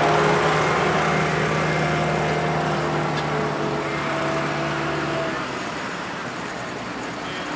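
Tractor engine running at a steady speed, its note fading away about five seconds in.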